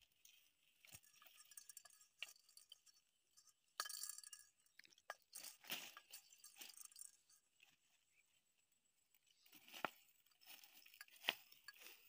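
Faint, scattered crunching, crackling and rustling of leaves and dry stems handled and pushed through by hand, with sharp little clicks in between. Brief louder rustles come about four, six and ten seconds in.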